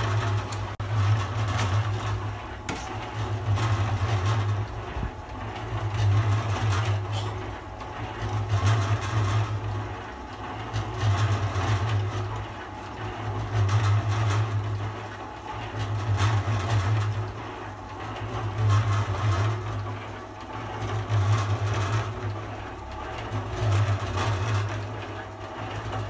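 Domestic cat purring right at the microphone: a low hum that swells and fades with each breath, about every two and a half seconds.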